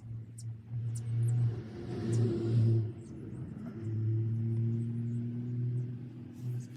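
A low, steady motor hum that swells and dips twice in loudness, with faint sharp ticks over it.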